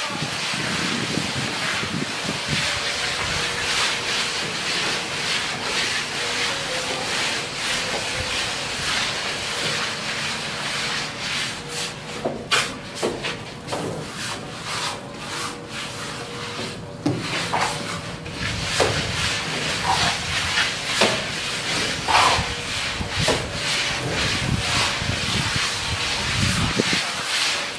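Hand trowels scraping and rubbing wet cement-sand render against a brick wall as it is spread and smoothed: a continuous scraping, breaking into more separate strokes in the second half.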